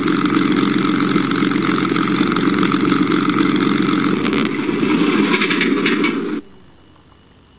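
Benedini sound module on a model P-51 playing a Rolls-Royce Merlin engine sound through its onboard speakers. The sound is distorted because the amplifier volume is set too loud for the speakers, which saturate. The low part of the sound drops away about four seconds in, and the whole sound cuts off abruptly a couple of seconds later.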